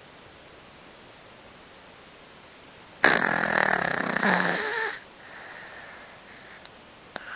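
A Yorkshire terrier snoring, with the nose blocked that the owner puts down to the dog's old age. About three seconds in comes one loud snore lasting about two seconds, followed by a quieter breath and a faint click near the end.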